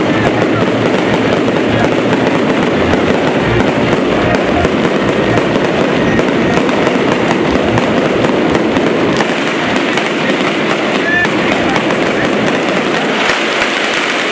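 Fireworks castillo burning: a loud, continuous, dense crackling of fireworks and sparks that keeps an even level throughout.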